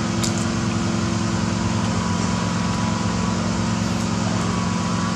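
A steady low machine hum, a constant drone with a hiss over it, as from a motor running.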